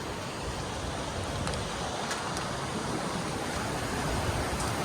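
Steady rushing noise of the James River's flowing water, growing slightly louder near the end.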